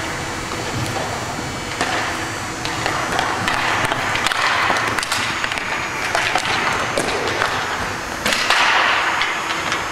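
Hockey play on a rink: skates hissing across the surface, swelling twice, with many sharp clacks of sticks and puck.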